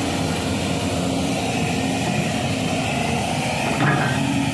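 Diesel engine of a 350-class excavator running steadily, with a brief sharp knock or clank about four seconds in.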